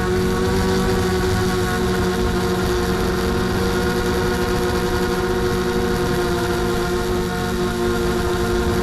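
Mini FPV quadcopter's electric motors and propellers whining at an almost steady pitch, with a rushing noise from the air under it.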